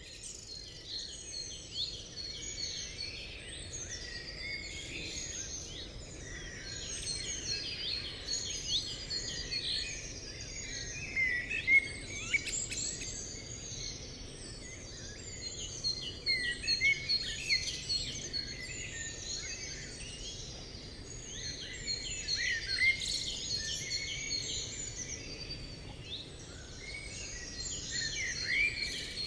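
Many birds chirping and calling at once, a dense chorus of short high calls that never lets up, over a faint steady background hiss.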